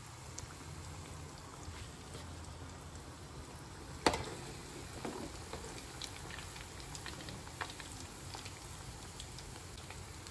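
Içli köfte (stuffed bulgur meatballs) cooking in hot oil: a steady faint sizzle with scattered crackles and one sharp pop about four seconds in.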